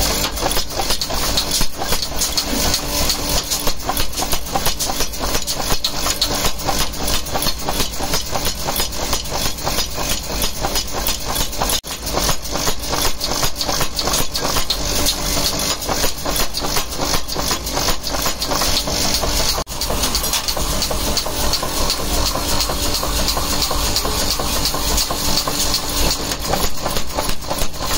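Rapid, steady hammer blows, several a second, driving a handled top tool into a red-hot iron piece held in tongs on the anvil to forge a flange nut, with a machine hum underneath. The blows pause briefly twice, about 12 and 20 seconds in.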